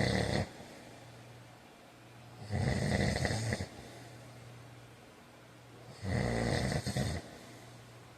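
A man snoring in sleep: the tail of one loud snore at the start, then two more loud snores about three and a half seconds apart, each lasting about a second.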